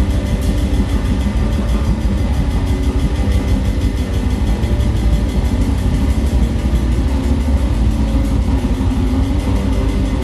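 Live rock band playing: electric guitars, bass guitar and drum kit, loud and steady with a heavy low end.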